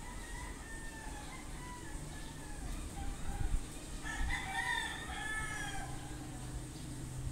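Roosters crowing: a fainter, more distant crow in the first couple of seconds, then a louder crow about four seconds in, over a steady background hiss and low rumble.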